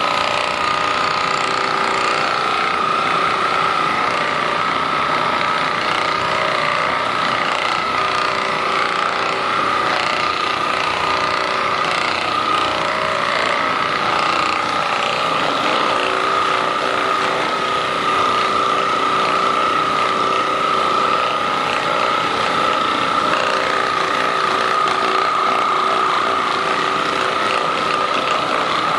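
Electric massager running steadily, a high motor whine with an even mechanical chatter that holds without a break.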